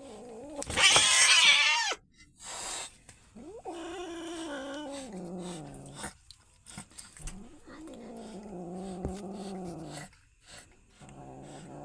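Cats facing off: a loud hissing screech about a second in, then long, wavering growling yowls, one after another.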